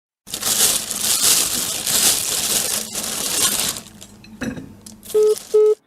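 Harsh crackling noise for about three and a half seconds, then three short beeps near the end: a phone call dropping on a network failure.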